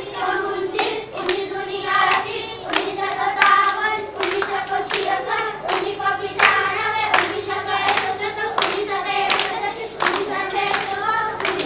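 A group of children singing a multiplication table in Garhwali in unison, clapping their hands to a steady beat about one and a half times a second.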